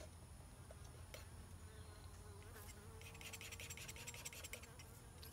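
Faint buzzing of a flying insect, a wavering drone that sets in about a second and a half in. A brief run of fast, fine scratching comes about three seconds in.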